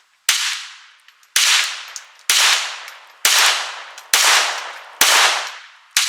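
Taurus TX22 .22 LR semi-automatic pistol firing a string of seven evenly paced shots, about one a second, each crack trailing off over most of a second.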